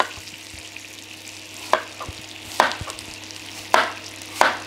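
Chef's knife slicing through apple quarters and knocking on a plastic cutting board: five sharp knocks at uneven intervals. Under them runs the steady sizzle of butter and brown sugar cooking into a light caramel in a frying pan.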